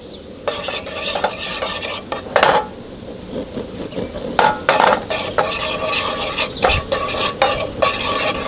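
Wooden spatula scraping and stirring ground coriander around a dry frying pan in repeated, irregular strokes: the coriander is being dry-toasted until it is lightly scorched.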